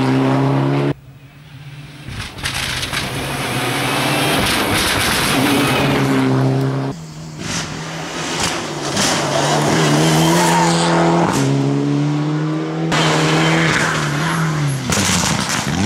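Rally car engine revving hard through the bends, its note climbing and dropping with gear changes. The sound cuts off abruptly about a second in and again around seven seconds in, then builds back up as the car comes closer.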